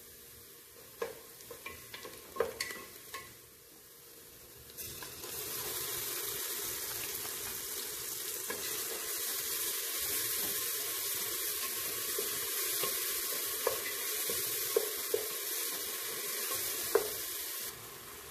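Onions and ginger-garlic paste frying in oil in an aluminium pressure cooker, with a steady sizzle that jumps louder about five seconds in. The stirring utensil knocks and scrapes against the pot now and then.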